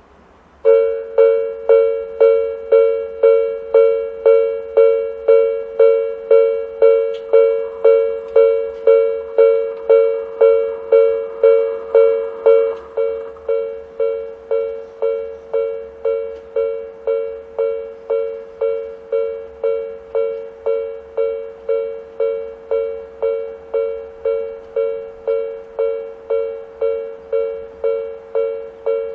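Japanese railway level-crossing warning alarm starting up and then dinging about twice a second, each stroke a two-note electronic bell tone, signalling that a train is approaching. The uploader takes it for the 'Hakone type' alarm tone, with the Nikko type as a second guess. The dinging drops slightly in loudness about 13 seconds in.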